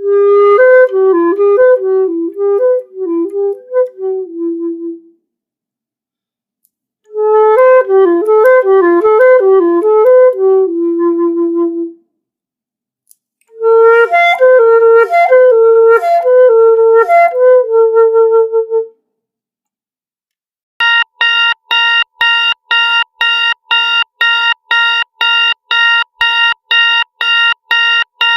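HTC 10 stock tones: a short flute-like melody played three times with short pauses between, then a fast, evenly repeating electronic beep pattern for the last third.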